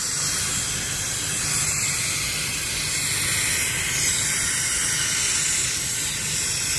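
Steady hiss of compressed air escaping from a CNC router's HSD spindle while its pneumatic drawbar is held in the released position, with a low rumble underneath.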